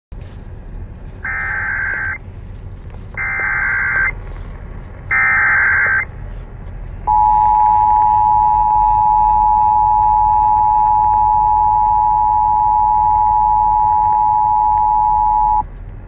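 Emergency Alert System activation: three roughly one-second bursts of screeching SAME header data, then, about seven seconds in, the steady two-tone attention signal, which holds for about eight and a half seconds before cutting off. A low hum runs underneath.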